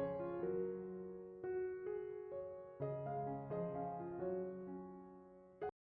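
Background piano music with slow, sustained notes that fade and then cut off abruptly near the end.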